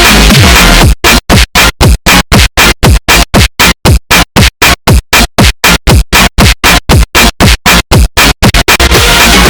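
Aggressive phonk beat with heavy bass. About a second in, the whole mix is chopped into rapid stutters, about four a second, each carrying a falling bass slide. The stutters speed up just before the full beat comes back near the end.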